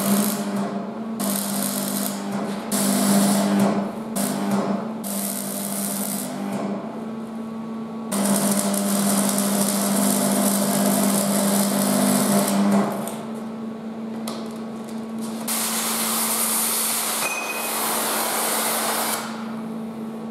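MIG welder running beads on a steel boat stand: several bursts of crackling, buzzing arc, the longest about five seconds, with the welding machine humming steadily between them.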